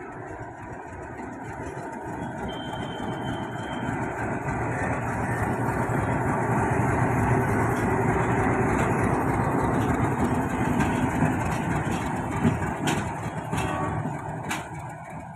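WDM-7 diesel locomotive engine running as it passes, growing louder as it comes alongside and then fading as it goes away, with a few sharp clicks near the end.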